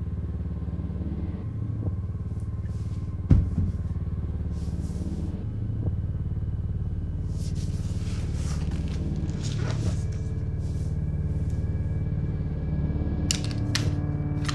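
A low, steady rumbling drone with a pulsing texture, broken by one sharp knock about three seconds in. Near the end come a few sharp metallic clicks from a pistol being handled.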